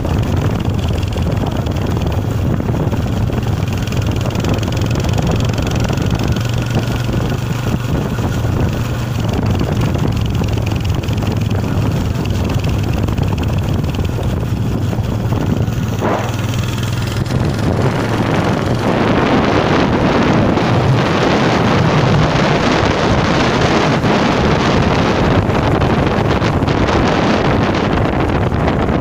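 Wind buffeting a handheld phone microphone while walking: a rough, continuous rushing that grows louder about two-thirds of the way through, over a steady low hum in the first half.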